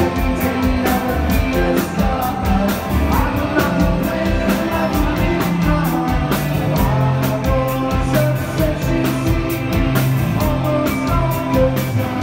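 Rock band playing live: electric guitar over a stepping bass line and a steady drum beat, with singing.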